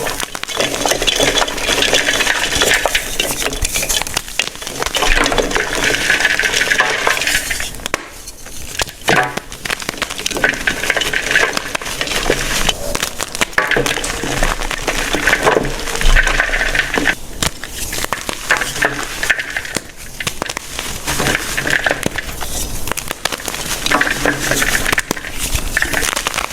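Chalk crumbles being crushed: a dense, crunchy crackling made of many small cracks, coming in waves with two short lulls.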